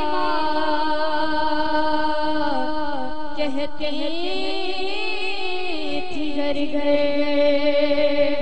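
A boy's high voice singing a naat unaccompanied, holding long notes with wavering, melismatic turns between them.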